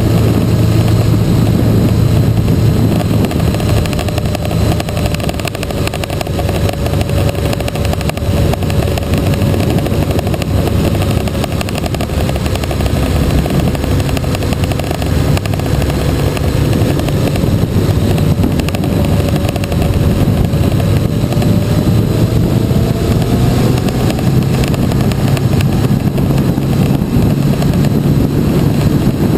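Motorcycle engine running steadily at cruising speed, mixed with wind rushing over the microphone. The engine note climbs for a few seconds about three-quarters of the way through, then eases back.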